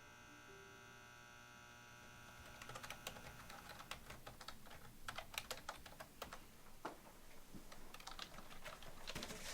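Typing on a computer keyboard: quick, irregular key clicks that start about two and a half seconds in, as held notes of music die away.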